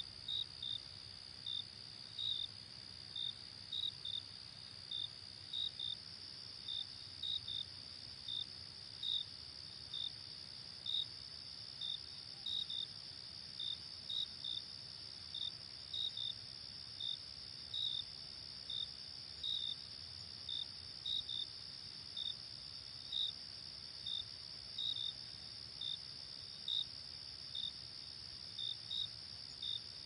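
Cricket chirping: short, high-pitched chirps about one to two a second, some in quick pairs, over a steady high-pitched drone.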